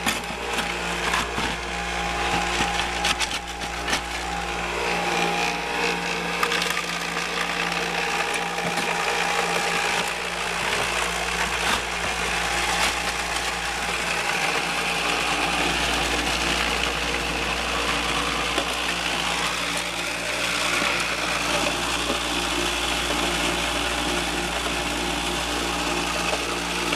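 Rocks clattering and rattling on a metal shaker-box deck for gold prospecting, thickest in the first six seconds, over the steady hum of the motor-driven setup running.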